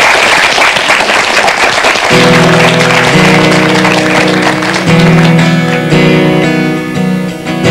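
Audience applauding, then about two seconds in a steel-string acoustic guitar begins playing sustained chords as a song's introduction.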